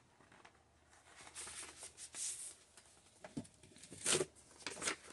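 Faint paper-and-cardboard handling noise from a vinyl LP's album jacket and paper inner sleeve being worked out: short scattered rustles and scrapes, the louder ones in the second half.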